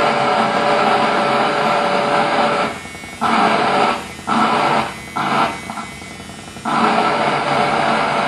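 Electric razor's motor buzz, picked up by a pickup and an electromagnetic microphone and run through effects pedals into a dense noisy drone with a steady hum. It drops away briefly four times in the middle, then comes back full.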